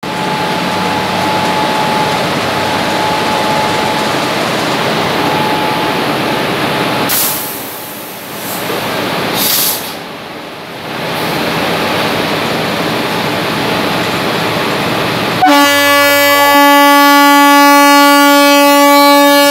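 Indian Railways diesel locomotive running alongside the platform with a steady engine noise. About fifteen seconds in, a train horn sounds, one loud steady multi-note blast held to the end.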